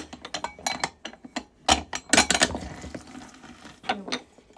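Lime halves squeezed in a metal hand-held citrus press: a string of sharp metal clicks and clacks as the press is handled and worked.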